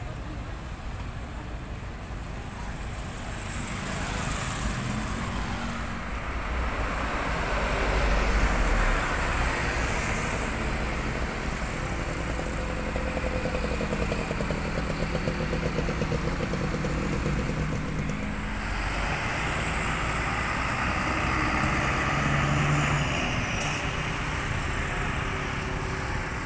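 Street traffic: motorcycle engines and a large coach bus engine running and passing, swelling louder in the middle and again near the end.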